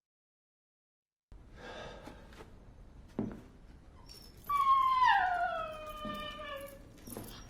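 A pet animal's long whining cry about halfway through, falling steadily in pitch over about two seconds. Before it there is a soft rustle and a single click.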